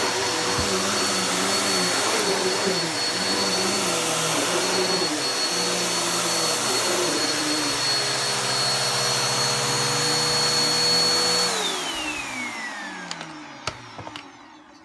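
Vacuum cleaner running steadily with a high motor whine, its airflow note wavering as the nozzle works. About three-quarters of the way in, it is switched off and the motor winds down with a falling whine, followed by a few clicks.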